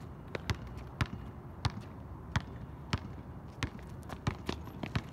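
A basketball dribbled on an outdoor hard court: sharp single bounces a little over half a second apart, coming quicker and closer together from about three and a half seconds in.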